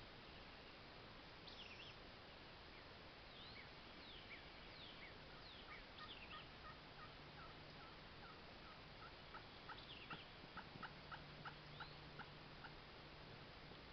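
Faint wild turkey yelps: a long run of short notes that quickens and grows louder toward the end, over scattered songbird chirps.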